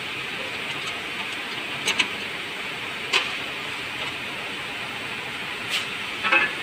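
Several sharp metallic clicks and clinks from hand tools and parts being handled at a car's radiator support: a pair about two seconds in, one a second later, and a quick cluster near the end, over a steady hiss.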